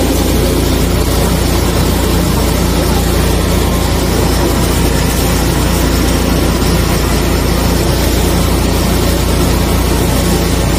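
Engine of a 350-bar high-pressure drain jetter running steadily at constant speed while its hose jets water through a drain pipe, with the hiss and splash of the water spray over it.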